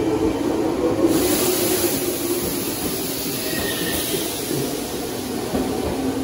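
Meitetsu 6000-series electric train (set 6029F) departing a station platform, its cars running past and gathering speed with a steady motor hum and wheel-on-rail noise. A high hiss comes in about a second in and fades a few seconds later.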